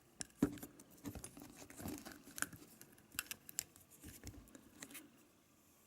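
Scattered light clicks, taps and rustles of small engine parts and tools being handled, settling down near the end.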